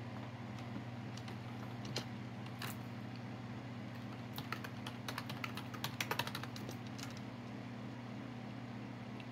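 Computer keyboard typing: a few scattered keystrokes, then a quick run of keystrokes in the middle, over a steady low hum.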